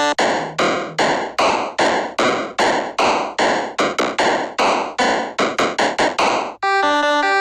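Electronic music: a run of repeated noise-drum hits, each dying away quickly, about three to four a second and getting faster near the end, then a held synth chord comes back in.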